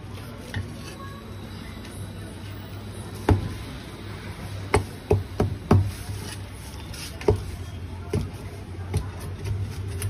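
Heavy cleaver chopping braised goose pieces on a thick wooden chopping block: about eight sharp chops, starting about three seconds in, with four in quick succession around the middle. Under them runs a steady low hum.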